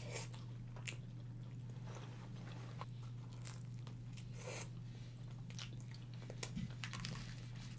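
Faint close-miked eating sounds: bites into pizza and chewing, with scattered soft crunches and mouth clicks over a low steady hum.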